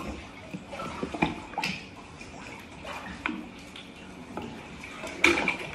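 Water moving in a small indoor hydrotherapy pool, with scattered clicks and knocks of small plastic water-testing items being handled on the poolside ledge. The sharpest knocks come a little over a second in and near the end.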